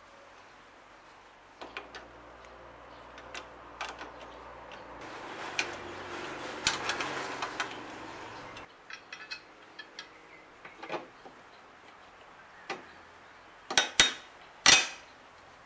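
Scattered metal clicks and clinks of wrenches working the bolts on a steel trike-kit mounting bracket, with a louder scraping stretch in the middle and a few sharp metal clanks near the end.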